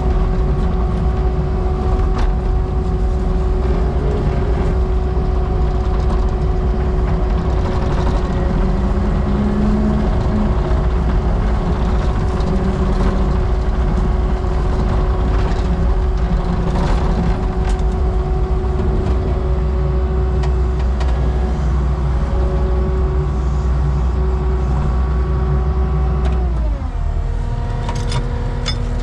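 Compact track loader's diesel engine running steadily at high throttle, with occasional knocks, then dropping quickly to a lower speed near the end.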